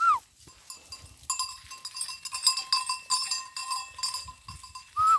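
Small bells on a herd of goats and sheep clinking again and again as the animals walk. A short whistle from the herder calling them comes at the start and another near the end.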